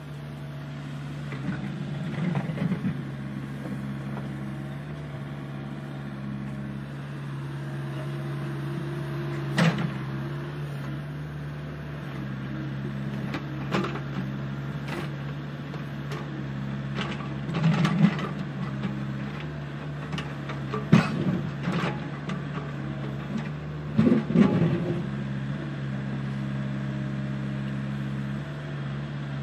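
Huina 1593 RC excavator's electric motors and gearboxes whining steadily as it works, with scattered knocks and scrapes of its metal bucket digging and dumping soil, louder clatters coming several times in the second half.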